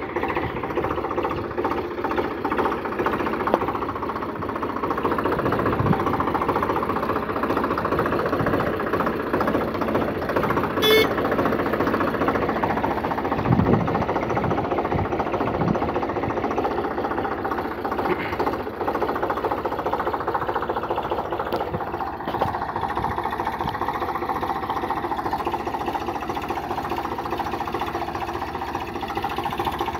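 Eicher 485 tractor's three-cylinder diesel engine running steadily as it drives slowly over ploughed soil.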